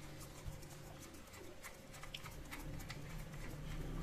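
Faint, irregular small clicks and ticks of a plastic toy screwdriver turning a screw in a plastic toy train, over a faint steady hum.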